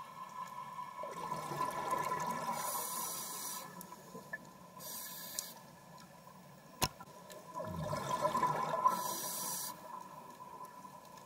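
Underwater scuba breathing through a regulator: two long rushes of exhaled bubbles about six seconds apart, each ending in a hiss. A single sharp click comes between them, over a faint steady tone.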